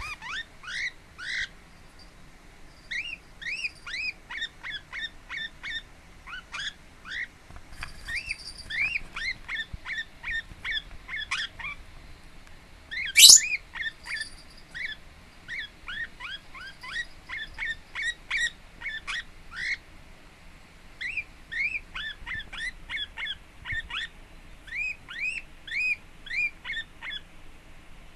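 Lineolated parakeet chirping: short arching calls in quick runs, broken by brief pauses, with one much louder, shrill call about halfway through.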